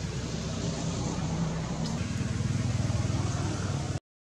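An engine running, a steady low rumble that gets a little louder about two seconds in and then cuts off abruptly near the end.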